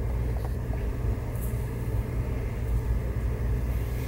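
A steady low rumble, with no voice over it.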